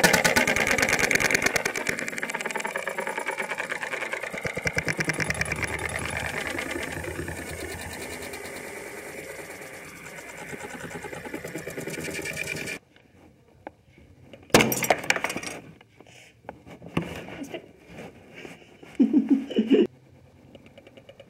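Rapid buzzing crackle from a lit incandescent bulb struck by water, cracking, with its filament arcing. It is loudest at the start, fades over about twelve seconds and then cuts off suddenly, followed by a few scattered clicks and knocks.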